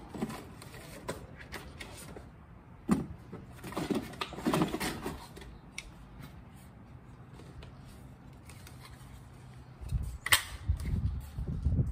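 Handling noise of a folded Kel-Tec Sub 2000 carbine being taken from a plastic toolbox and unfolded: scattered clicks, knocks and rustling, with a sharper click near the end as the barrel swings up.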